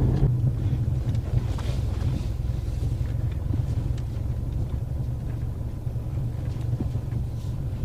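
Ford Mustang 2.3T cruising slowly, heard from inside the cabin: a steady low rumble of engine and road noise, with a few faint ticks. No suspension clunk is heard from the newly fitted Tein shock absorbers.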